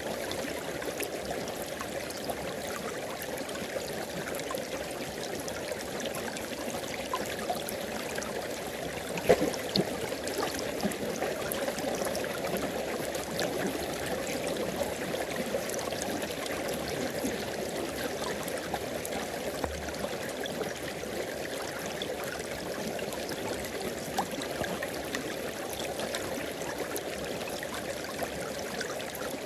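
River water flowing over rocks, a steady rushing and gurgling with small scattered ticks. One brief louder click about nine seconds in.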